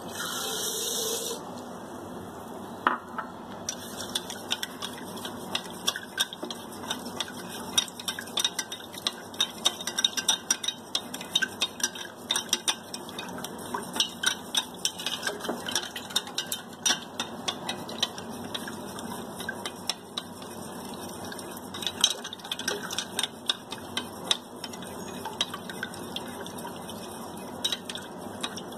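Sugar poured from a glass bowl into a glass jug with a brief hiss, then a spoon stirring in the glass jug, clinking quickly and unevenly against the glass as the sugar is dissolved.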